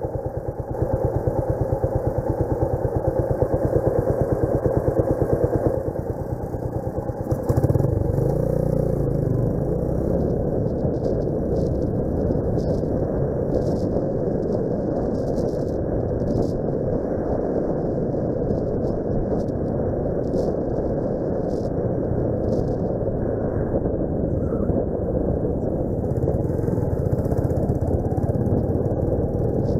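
Suzuki Grasstracker Big Boy's 250 cc single-cylinder four-stroke engine idling with an even pulse while stopped, then opened up and pulling away about seven seconds in, running on steadily under way with rushing noise over the microphone.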